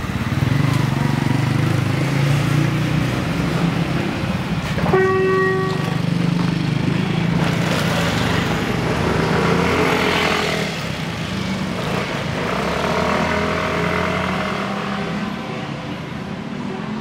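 Motorcycles running past on a street, with a steady engine hum, and one short horn beep about five seconds in.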